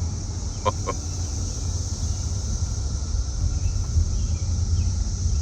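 Steady drone of a periodical cicada chorus heard from inside a moving car, over low road rumble. It has an echo-like quality, like a tire rotating somewhere in the background. Two short bird chirps come about a second in.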